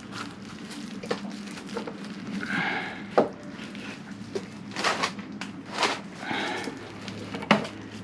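Scattered sharp knocks and clicks of metal parts being handled as a motorcycle front wheel and its axle spacers are positioned back into the fork, over a steady low hum.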